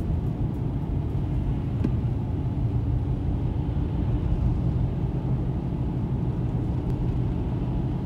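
Steady low rumble of a car's engine and tyre noise, heard from inside the cabin while driving.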